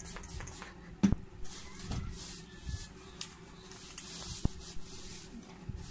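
Alcohol hissing out of a spray bottle onto bubble wrap, with the plastic wrap rustling as it is handled. There is a sharp click about a second in.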